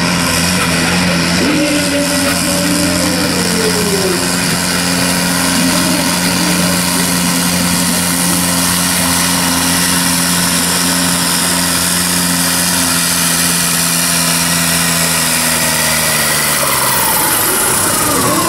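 International 744 tractor's diesel engine at full throttle, pulling a tractor-pull sled with a steady, loud note. Its pitch falls about three quarters of the way through as the engine eases off at the end of the pull.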